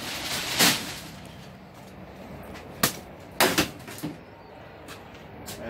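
A handful of short knocks and thumps from household junk being handled and set down, the sharpest about a second in and a pair around three and a half seconds in.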